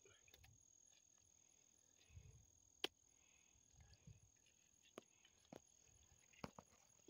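Near silence with faint, steady insect chirring, likely crickets, in the grass. A few sharp clicks and soft low thumps are scattered through it.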